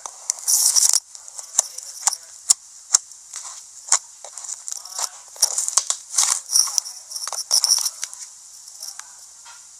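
Slime being squeezed and poked by hand, giving irregular, high-pitched crackling and popping clicks, thickest just after the start and again about halfway through, thinning out near the end.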